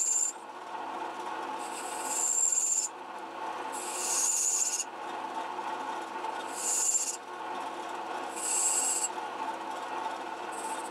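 Metal lathe running with a cutting tool taking repeated short cuts across a metal pulley's crowned rim. Each cut is a brief high-pitched hiss lasting about a second, coming about every two seconds over the lathe's steady hum.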